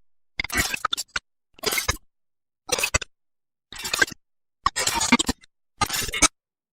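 A run of six short sound effects played one after another, each under a second long and cut off into dead silence, about one a second.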